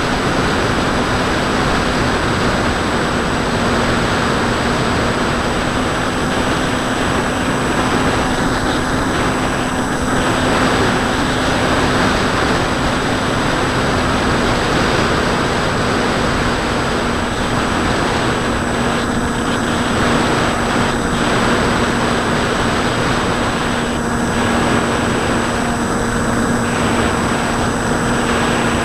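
Onboard sound of a Bixler 2 model plane in cruise: the Turnigy D2826-10 1400kv brushless motor and 8x5 propeller giving a steady hum at constant throttle, under heavy wind rush on the onboard camera's microphone.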